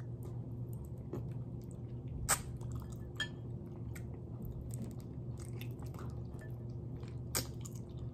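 Close-up chewing and gnawing of tender adobo chicken feet eaten by hand: wet mouth sounds and many small clicks of teeth working skin off the bones. Two sharper clicks stand out, about two seconds in and near the end, over a steady low hum.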